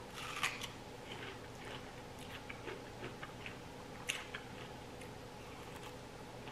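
Close-miked chewing of chocolate-dipped fresh fruit: soft, wet mouth clicks and smacks, with a sharper click about half a second in and another about four seconds in.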